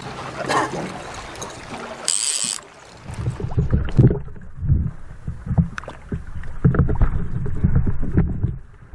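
A steady low hum from the boat's outboard motor for about two seconds. After a short break, water sloshing and splashing in irregular low surges with small knocks, close against a camera mounted on a landing net as the net is dipped into the lake and a kokanee is netted.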